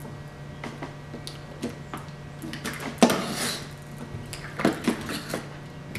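Razor knife blade scraping and clicking as it is worked between a vinyl window sash and an insulated glass unit, cutting the seal that holds the glass. A sharp click with a short scrape about three seconds in, and more scraping near the end.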